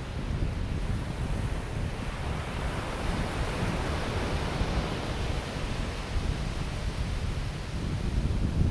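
Ocean surf breaking and washing onto a sandy beach, swelling to a peak over the middle few seconds and easing off. Wind buffets the microphone throughout as a low rumble.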